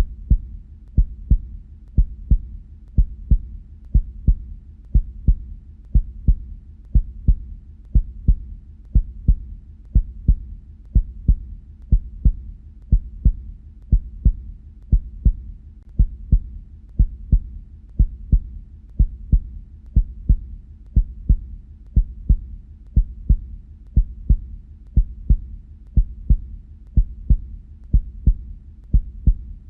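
Heartbeat in a steady lub-dub rhythm, about one beat a second: paired low thuds of the heart valves closing.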